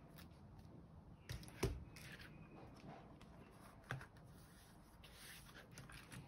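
The OTOFIX D1 scan tool's plastic front housing and screen assembly being handled and set down on a table: a few knocks, the loudest about a second and a half in and another near four seconds, with soft rustling between.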